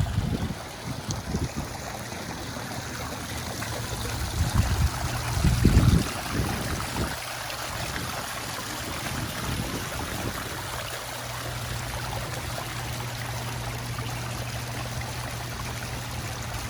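Fountain water running and splashing steadily, with low rumbling surges near the start and again about four to six seconds in.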